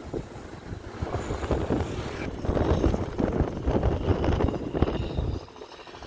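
Wind buffeting the microphone: an irregular low rumble that grows louder about two seconds in and drops away near the end.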